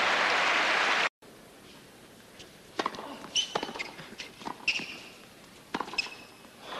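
Crowd applause that cuts off about a second in, then a tennis rally: a string of sharp racket-on-ball strikes and ball bounces with short high shoe squeaks on the court. Applause rises again near the end.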